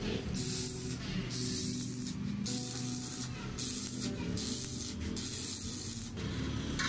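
Stick arc welding: the electrode's arc crackling and sizzling as it welds steel spokes to a wheel rim, in several bursts about a second long with short breaks between them as the welder stops and strikes the arc again.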